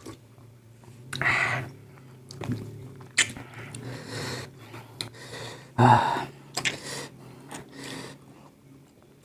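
A person chewing and biting into spicy pickled fruit close to the microphone: irregular short wet bursts and small clicks, with louder mouthfuls about a second in and about six seconds in.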